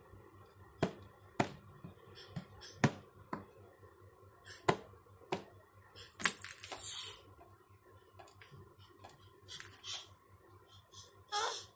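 A series of sharp clicks and taps, about a dozen, irregularly spaced and mostly in the first half, with a short rising sound near the end.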